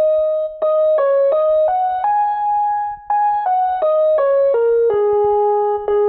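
Background music: a simple melody on an electric-piano-like keyboard, played one note at a time at about three notes a second, with a couple of held notes and brief breaks about half a second and three seconds in.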